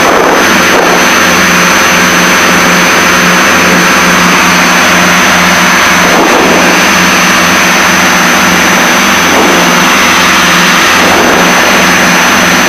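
Piper Seneca's twin piston engines and propellers droning steadily in the cockpit, with a regular pulsing throb, over a constant hiss.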